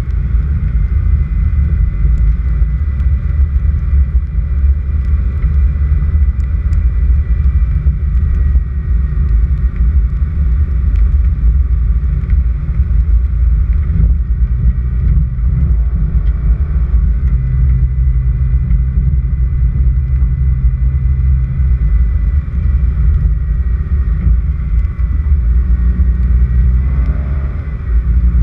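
Car driving on an unpaved dirt road: a steady, loud low rumble of engine and tyres, with a steadier hum for a few seconds in the middle.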